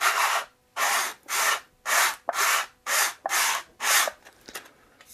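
Hand sanding solid maple with a small block wrapped in 120-grit sandpaper: about eight short scratchy back-and-forth strokes, stopping about four seconds in. It is cleaning old glue residue off the face of a failed glue joint before regluing.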